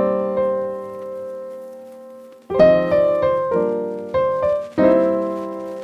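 Background piano music: chords struck and left to fade, a long sustained one at the start, new chords about two and a half seconds in and again near the end.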